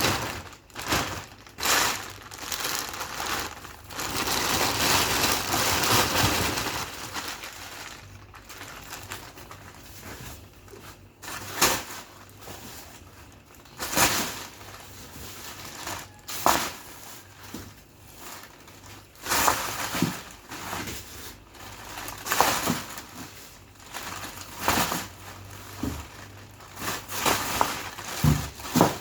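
Plastic bags of frozen meat being handled and moved in a freezer: crinkling plastic with sharp knocks of hard frozen packs, and a longer stretch of rustling about four to seven seconds in.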